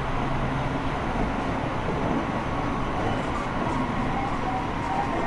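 Tsukuba Express TX1000 series electric train running between stations, heard from inside the car: a steady rumble of wheels on rail and traction motors. A low hum drops out about a second in.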